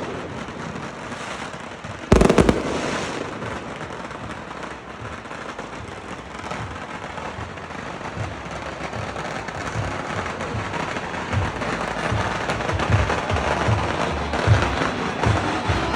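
Fireworks going off: one loud bang about two seconds in, then steady crackling. Toward the end a rhythmic low beat of music comes in over it.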